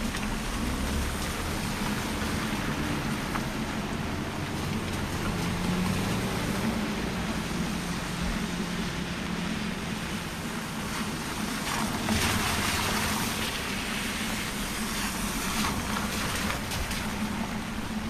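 Steady hiss of traffic on a rain-soaked road mixed with falling rain, under a low steady hum. About twelve seconds in a louder swish rises and fades, as of a car driving past on the wet road.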